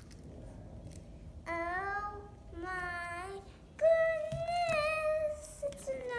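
A child's voice singing two long, drawn-out notes, the second one higher and louder and slightly wavering.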